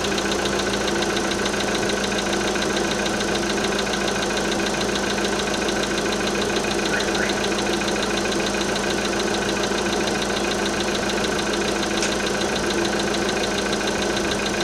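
Volkswagen Polo Sedan engine running steadily with a fast, even knock ticking over the engine note: the engine knock the owner is recording.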